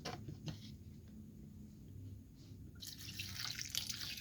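Water being poured into the bowl of an electric meat chopper, a hissing trickle that starts about three seconds in, after a couple of light clicks.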